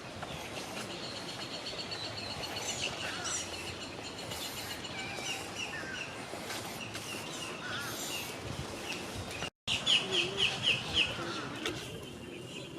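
Many birds calling and chirping together over a steady background hiss. About three-quarters of the way through, the sound cuts out for a moment, then one bird gives a quick run of about six loud chirps.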